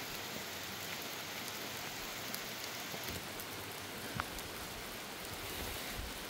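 Steady rain falling and pattering on surfaces, with a few faint sharp drop ticks here and there.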